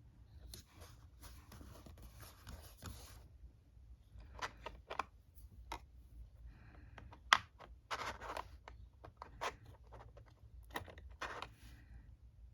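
Scratchy strokes on paper, a steady stretch at first, then broken into short strokes with several sharp clicks and taps, one much louder click past the middle.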